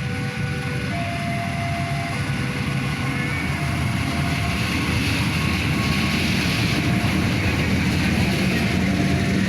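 Diesel-hauled passenger train running past: a steady rumble of the locomotive and the wheels on the rails, growing a little louder in the second half.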